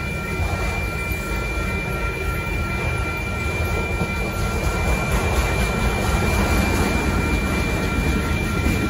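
Freight train of autorack cars rolling past at a grade crossing: a steady low rumble and clatter of wheels on rail that grows a little louder about halfway through. Two steady high-pitched tones ring over it throughout.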